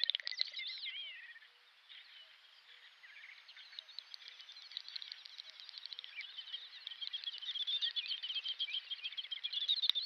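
Small birds singing, a busy mix of high chirps, whistles and warbling trills that thins out to a quiet spell about a second and a half in, then builds up again toward the end.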